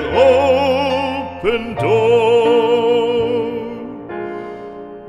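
Classical singer with a wide vibrato sings and then holds a long note over a soft accompaniment. The voice stops about four seconds in, leaving the accompaniment to play on more quietly.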